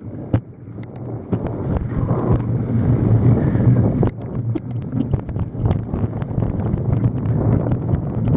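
Mountain bike riding over a wet, muddy forest track: steady wind buffeting on the microphone and a low rumble of tyres, with frequent small clicks and knocks as the bike jolts over the rough ground.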